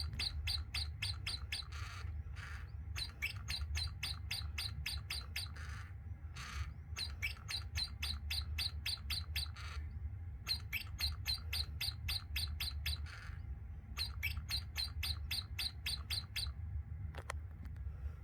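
Gemmy animated Christmas blue bird toy playing its recorded bird chirping: rapid runs of high chirps, about five or six a second, in phrases of two to three seconds with short pauses between, over a steady low hum.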